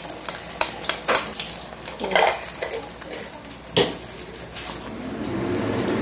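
Beaten egg frying in hot oil in a wok, sizzling and crackling, with a few sharp knocks of utensils on the pan. Near the end a steadier rushing noise comes in and grows louder.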